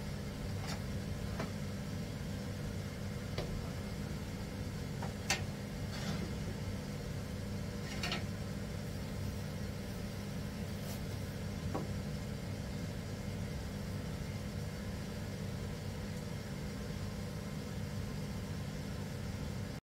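Steady low hum of a running kitchen appliance, with a few faint clicks and soft crinkles as pastry dough is pulled from a plastic bag and handled.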